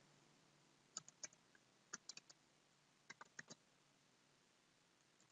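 Faint keystrokes on a computer keyboard in three short bursts of a few keys each, about a second apart, as a password is typed.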